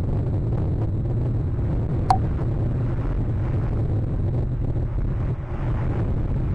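Strong wind buffeting the nest camera's microphone: a steady low rumble throughout. About two seconds in, a brief sharp sound drops quickly in pitch.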